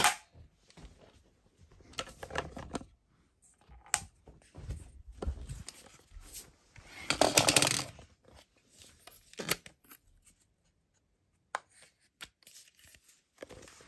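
A toy foam-dart blaster goes off with a sharp plastic snap at the start. Then come irregular bouts of plastic rattling and scraping as toy blasters are handled and a dart is loaded, the longest and loudest about seven seconds in.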